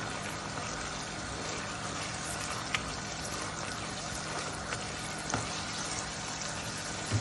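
Chicken, cabbage and sauce mixture cooking in a non-stick pan, a steady sizzling and bubbling of its liquid as it reduces. There are a few light taps of the spatula as it is stirred.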